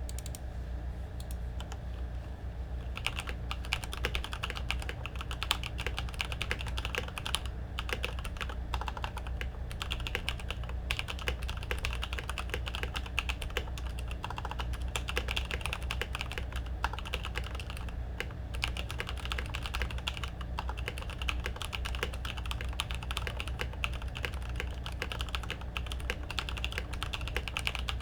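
Continuous typing on a Ganss ALT61 mechanical keyboard with Kailh Black linear switches lubed in Tribosys 3204, lubed and clipped stabilisers, and PBT keycaps. The keystrokes are light for the first few seconds, then dense and steady from about three seconds in, over a steady low hum.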